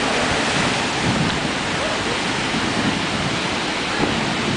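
Ocean surf breaking on the beach, a steady rushing noise.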